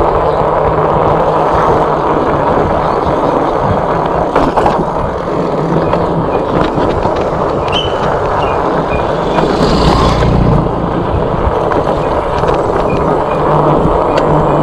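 Wind buffeting the microphone and tyre rumble as an e-bike rides over a rough, cracked concrete road, with a brief louder swell about ten seconds in.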